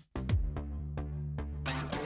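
Electronic background music with a steady beat. It drops out for an instant just after the start, then comes back and grows fuller near the end.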